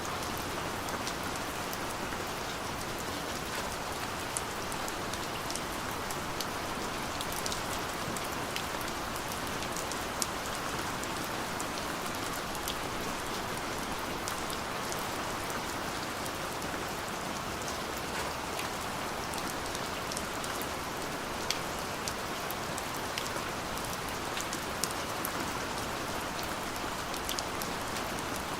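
Steady light rain falling, an even hiss with scattered individual drops ticking sharply on a surface.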